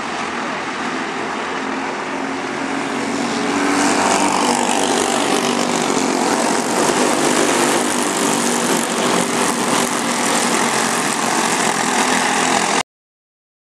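Racing kart engine running, growing louder about four seconds in, then cutting off suddenly near the end.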